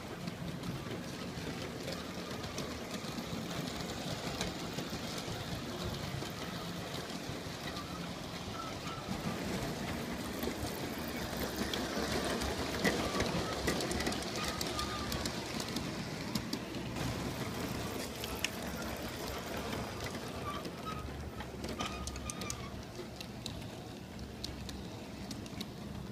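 G scale model train running on its track: a steady electric-motor hum and wheel rumble, with many small clicks as the wheels cross the rail joints. It gets louder around the middle as the cars pass close by.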